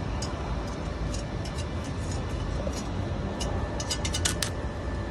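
Stick-welding arc from a small, cheap welding machine, struck against a steel square tube to cut it: intermittent sharp crackles and pops, most dense about four seconds in, over a steady low rumble.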